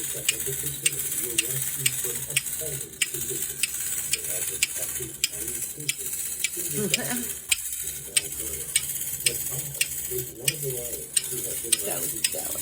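Vintage wind-up toy running on its clockwork spring: a steady high hiss over a busy mechanical rattle, with a sharp click about twice a second.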